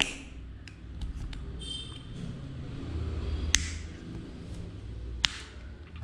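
Plastic rocker switch being pressed back together in the fingers. Its rocker is being snapped into its retaining holes, giving a few sharp clicks: the loudest about three and a half seconds in, another a little after five seconds. Between the clicks are a brief squeaky scrape and soft handling rustle.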